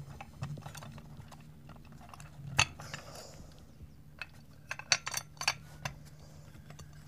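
Light clicks and clinks of an LED street light's housing and parts being handled and fitted back together, with a sharper click about two and a half seconds in and a quick run of clicks around five seconds in.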